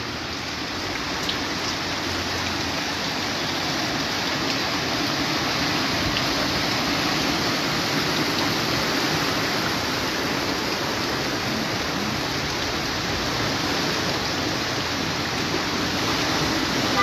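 Floodwater from an overflowing creek rushing across a road, a steady, even rushing noise.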